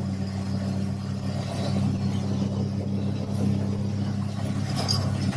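Car engine and road noise heard from inside the cabin: a steady low hum.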